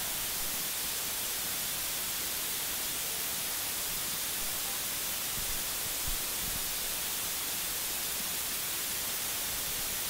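Steady, even hiss with no other sound: the noise floor of the recording in a quiet conference room.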